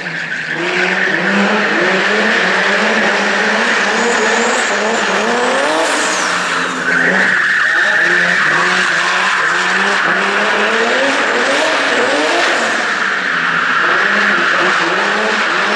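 BMW E30 drift car sliding sideways, its engine revving up and down in quick repeated surges over a steady squeal of spinning tyres. The tyre squeal gets louder about seven seconds in.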